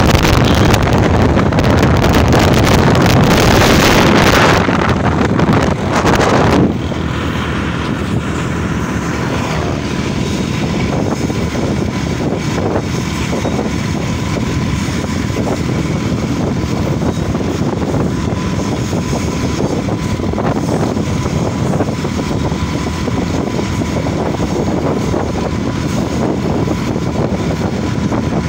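Hazara Express passenger train running, a steady rumble and rattle of the moving train with wind on the microphone. A louder rushing noise fills the first six seconds or so and cuts off suddenly, leaving a steadier, lower run with faint clicks.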